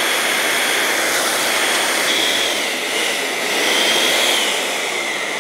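Premium Foil Pro electric balloon inflator blowing air steadily through its hose into a large foil balloon, a loud even rush of air with a faint whine, as the balloon fills up.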